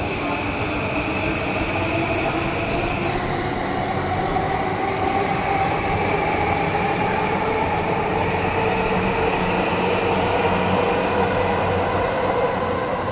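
Electric commuter train running past the platform, its motors giving a whine that slowly rises in pitch as it speeds up, over wheel and rail noise. A high tone cuts off about three seconds in.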